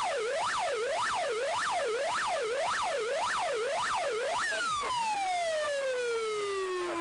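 Siren with a yelping wail, its pitch sweeping up and down about twice a second. About four and a half seconds in, it stops sweeping and winds down in one long falling tone.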